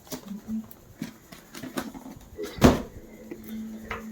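Handling of a gift box and its packaging: several separate knocks and clicks, the loudest about two-thirds of the way through, with a steady low hum coming in shortly after it.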